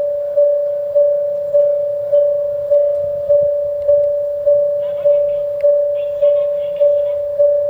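Japanese railway level-crossing warning bell ringing: a single electronic ding repeated steadily, about 1.7 strikes a second, each decaying before the next, signalling an approaching train. Faint high chirping joins in the second half.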